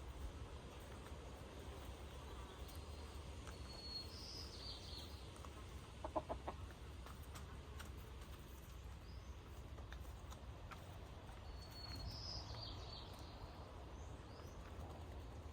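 Chickens clucking softly, with a quick run of louder clucks about six seconds in. High, short chirping calls come twice, a few seconds apart, over a steady low background rumble.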